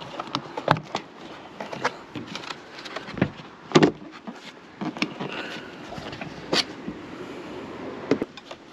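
Plastic battery-compartment cover on a Land Rover Discovery 3 being unclipped and lifted off: an irregular string of sharp plastic clicks and knocks, the loudest a little before the middle.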